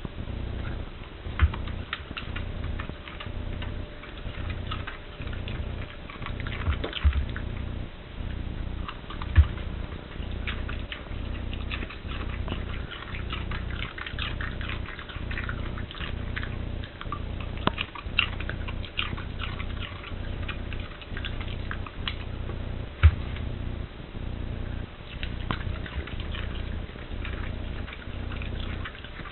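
A dog crunching and chewing raw cabbage cores: rapid, irregular crisp crunches with a few louder knocks, over a steady low hum.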